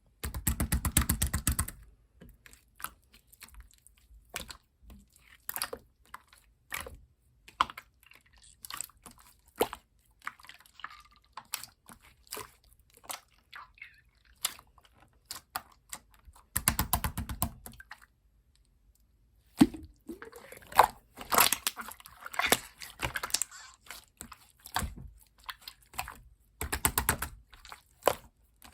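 Clear slime being squished and pressed by hand, making sticky clicking pops, with several bursts of rapid popping as air bubbles in the slime are squeezed.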